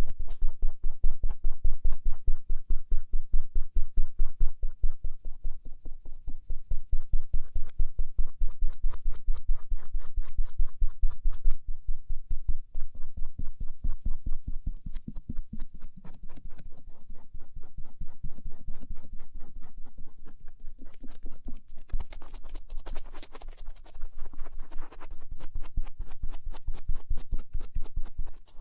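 A cotton swab rubbing and scratching over the outer ear (pinna) in quick, even strokes, several a second. A little past two-thirds of the way through, the strokes turn brighter and more hissing.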